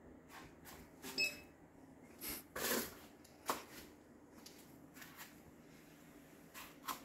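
Faint, scattered clicks and brief rustles, with a short high-pitched tone about a second in.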